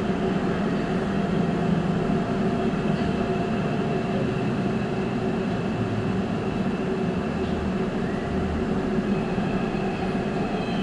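New Busan Metro Line 1 subway train running, heard from inside the car: a steady rumble of wheels on the track with several steady whining tones from the train's drive equipment.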